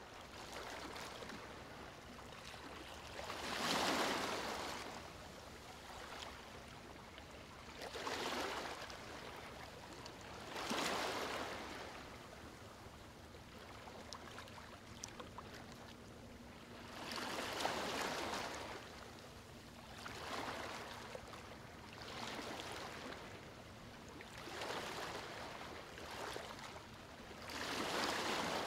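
Water washing and rushing, surging louder every three to five seconds in about eight swells.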